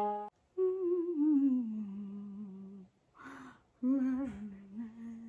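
A woman humming two short phrases with her mouth closed. The first is a long note sliding down in pitch, and the second follows after a short breath.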